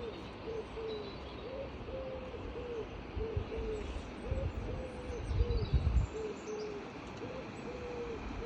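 A bird calling in a steady series of short, low hooting notes, about one or two a second, over outdoor background noise. Low thumps come in about four to six seconds in.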